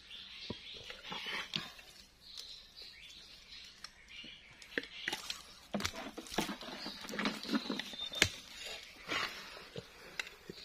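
A hand digging into a crab burrow in wet mud among roots: scattered squelches, small snaps and rustling of twigs and leaves, with one sharper snap about eight seconds in.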